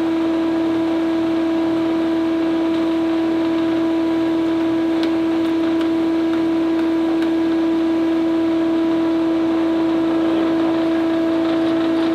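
1984 Delta RC51 20-inch four-knife three-phase thickness planer running, its motor and cutterhead giving a loud, steady hum with one strong constant tone.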